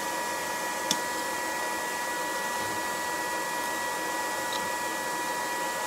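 Electric blower fan running steadily with a constant whine, with a faint click about a second in.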